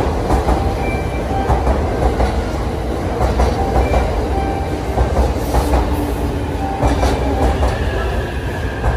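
JR East E657 series limited-express electric train rolling slowly past the platform, wheels clattering over the rail joints over a steady low rumble.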